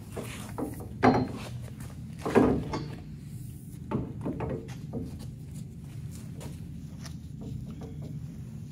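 Hydraulic lift-cylinder parts knocked and set down on a metal workbench: a few brief clunks, the two loudest about one and two and a half seconds in, over a steady low hum.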